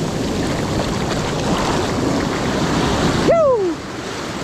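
Ocean surf washing on the beach, a steady rushing noise, with a short cry that falls in pitch about three seconds in.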